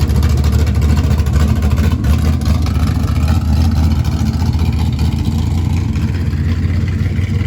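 Classic car engine running steadily with a deep, even low-pitched sound.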